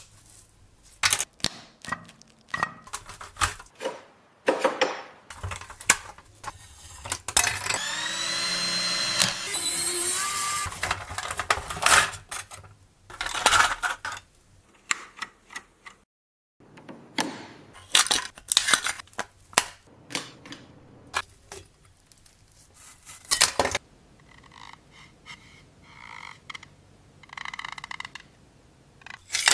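Hand tools and small metal parts being handled: repeated clicks, knocks and clinks, with a small power tool whining for a couple of seconds about eight seconds in and a rhythmic scraping near the end.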